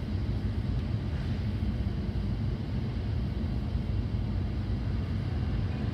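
Caterpillar 552 track feller buncher's diesel engine running steadily under load as it works in the timber.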